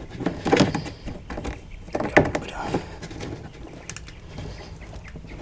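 Hard plastic knocking and creaking as the split retaining ring of a Twist and Seal kayak hatch is worked into the hatch opening: a few sharp knocks, two close together about two seconds in, with short creaks.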